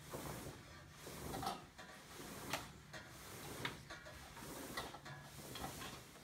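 Scene-change handling noise: a painted stage backdrop being lowered over a flat, giving a faint series of short knocks and scrapes about once a second.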